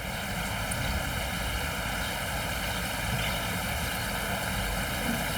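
Steady rushing of a rain-swollen river in flood, an even roar of fast water with a low rumble beneath it.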